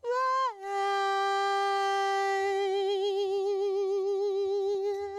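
Unaccompanied male lead vocal holding one long sung note. The pitch drops about half a second in, then the note is held steady with vibrato that widens toward the end.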